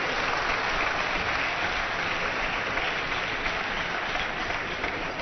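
Spectators in a table tennis hall applauding a point that ends a long rally. The clapping is steady and fades slightly toward the end.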